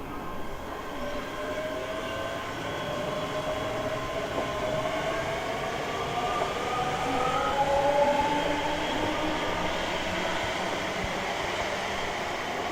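Vehicle noise: a steady rushing sound with several whining tones that rise slowly over several seconds, as of a motor gathering speed.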